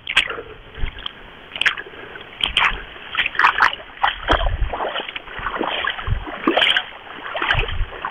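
Small waves lapping and splashing close by, in irregular splashes of different strengths, with a few low thumps among them.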